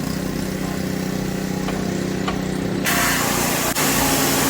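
Pressure washer motor running steadily with the spray off, then the water jet from the 15-degree nozzle hisses back on about three seconds in.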